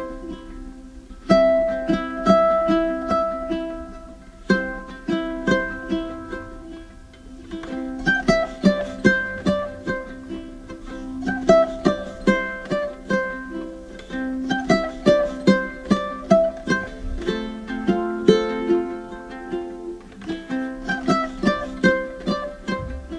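Background music: a light tune of quick plucked-string notes.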